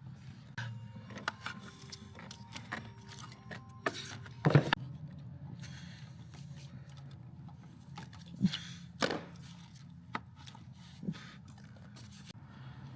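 Scattered clicks and knocks of tools and engine parts being handled during timing chain work, over a steady low hum. The loudest knock comes about four and a half seconds in, with more around eight and nine seconds.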